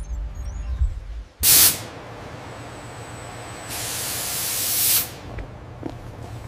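Pressurised air hissing in two releases: a short, loud blast about a second and a half in, then a longer hiss that grows louder for just over a second and cuts off sharply.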